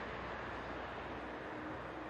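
Steady outdoor background noise with a low, even rumble and no distinct events.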